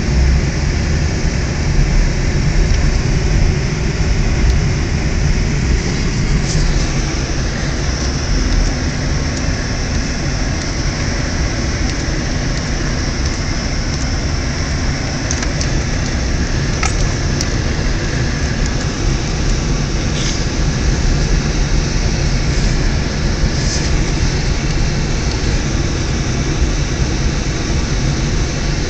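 Steady rumble of a car driving, heard from inside the cabin: engine and tyre noise on a snow-covered road.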